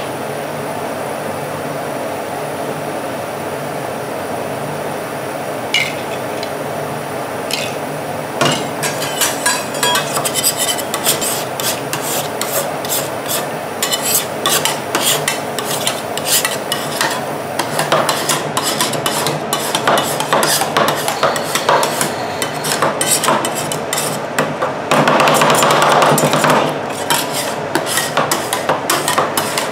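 Metal spatulas chopping and scraping freezing yogurt ice-cream base on the steel cold plate of a rolled-ice-cream machine: a steady hum at first, then rapid, irregular metal taps from about eight seconds in, with a louder scraping stretch a few seconds before the end.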